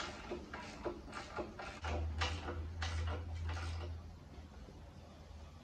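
Hand socket ratchet clicking in short strokes as a nut on the front suspension is run down, the strokes thinning out after about four seconds. A low hum joins from about two to four seconds in.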